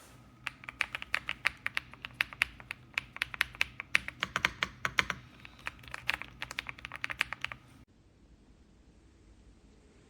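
Typing on an Ajazz AK820 Pro 75% gasket-mounted mechanical keyboard: a fast run of keystrokes that stops abruptly about eight seconds in.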